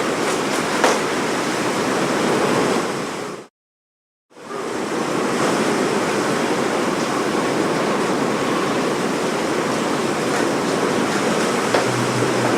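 Steady noise of storm wind and heavy rain on the microphone. It drops out to silence for under a second about three and a half seconds in, then continues at the same level.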